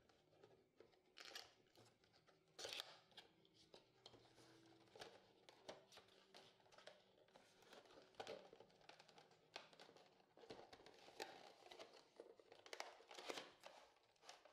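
Faint handling of a small cardboard retail box: the flap being pulled open and the cardboard and clear plastic packaging rustling and crinkling, with scattered small clicks and scrapes.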